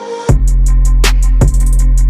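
Background music: after a brief lull, a beat with a heavy bass and drums kicks in about a quarter second in, with hi-hats ticking between the kicks.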